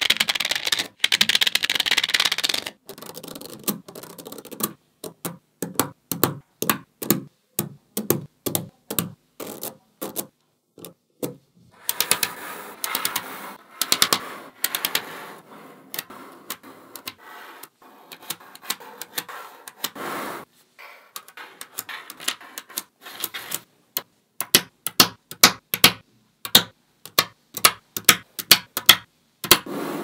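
Small magnetic balls clicking and snapping together as rows of them are laid down and pressed into place. Dense rattling clatter comes near the start, about halfway through and again a little later, with runs of single sharp clicks between.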